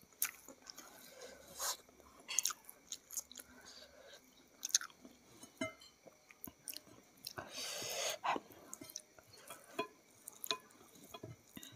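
A person chewing a mouthful of rice and fried chicken eaten by hand, with wet mouth clicks and smacks throughout and one longer, louder chewing noise about eight seconds in.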